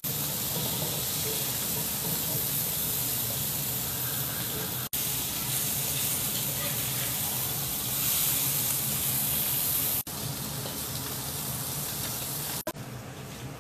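Small whole fish frying in hot oil in a wok, a steady sizzle that breaks off sharply for an instant a few times and is a little quieter near the end.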